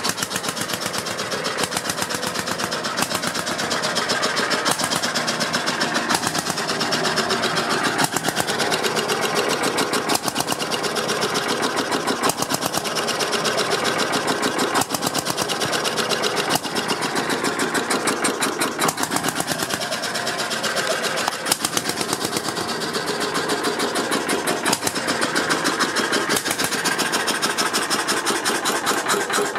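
Blackstone two-stroke stationary compressor engine running steadily, with a fast, even beat of firing strokes and mechanical clatter.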